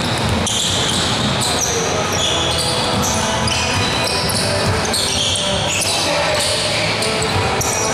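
Indoor basketball game: sneakers squeak on the court over and over, the ball bounces, and players' voices echo in the hall.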